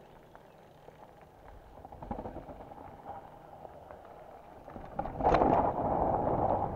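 Mountain bike rolling down a dirt forest trail: tyres crunching over dirt and roots with the bike rattling. About five seconds in there is a sharp knock, and the rolling noise gets much louder.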